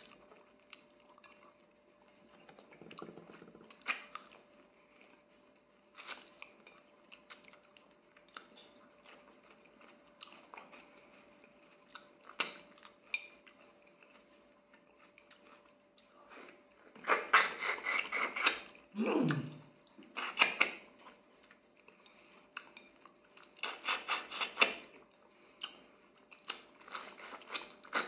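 A person chewing and eating fish with the fingers, with scattered small clicks and light clinks of a ceramic plate being handled. The chewing comes in denser runs in the second half, over a faint steady hum.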